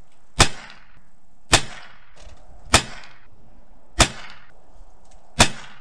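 Five shots from a Savage B22 Precision bolt-action .22 LR rifle, each a sharp crack with a short tail, coming a little over a second apart.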